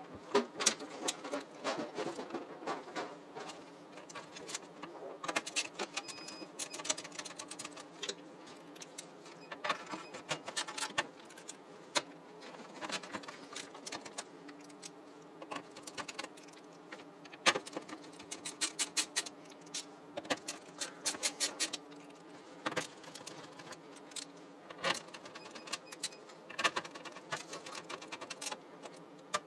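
Irregular clicks, taps and light metallic rattles of a motherboard being handled and fitted into a desktop PC case, over a steady low hum.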